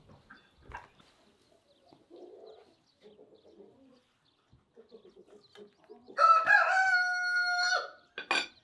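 A rooster crowing once about six seconds in: one long call, rising at the start and then held, lasting under two seconds, with a short call just after. Before it, faint clinks of a fork on a plate.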